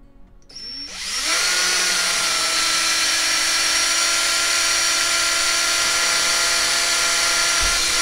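DeWalt cordless drill, set to its slow screwdriver function, drilling a hole through a thin aluminium screen-door handle. It spins up over the first second and then runs as a steady, even-pitched whine.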